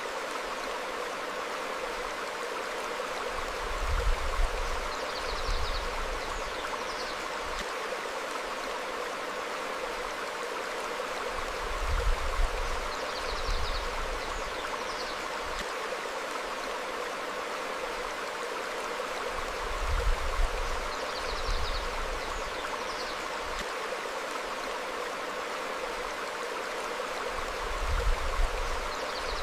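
Steady rush of a stream flowing over rocks, with short high bird chirps coming back every few seconds. About every eight seconds a low rumble swells briefly, louder than the water.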